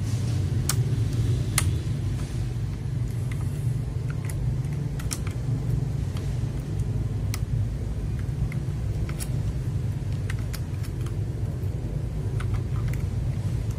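Irregular sharp clicks of mechanical keyboard keys and keycaps being pressed and handled while a keycap is tried out, some single and some in quick clusters, over a steady low hum.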